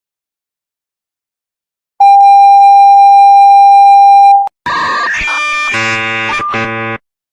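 A single loud, steady electronic alarm tone holds one pitch for about two and a half seconds, starting about two seconds in. It is followed by a jumble of layered electronic tones that shift in pitch and stop suddenly near the end.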